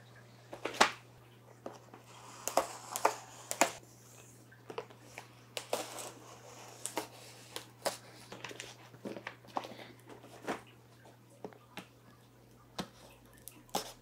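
Cardboard shipping box being handled on a table and its packing tape slit and torn open with a knife: scattered taps, scrapes and crinkling, over a faint steady low hum.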